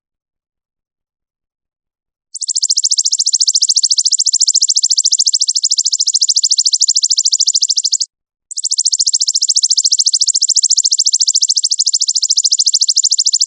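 A recorded masteran call: a high-pitched, very fast and even buzzing trill with no change in pitch, in two long bouts of about six seconds each, separated by a short break. It begins after about two seconds of silence.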